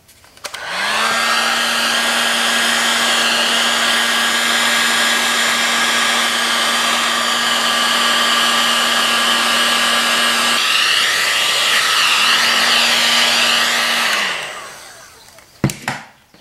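Electric heat gun running: a steady fan blowing with a constant motor hum, switched on about half a second in and spinning down near the end, shrinking heat-shrink tubing over a spliced cord. A single knock follows shortly after it stops.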